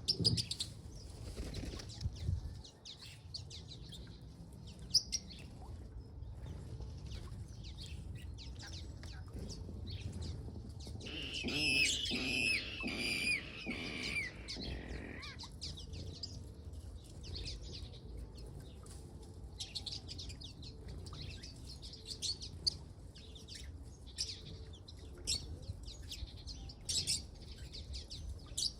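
Water rail calling: a run of squealing notes that fall in pitch, lasting about four seconds near the middle, among scattered short chirps from other birds.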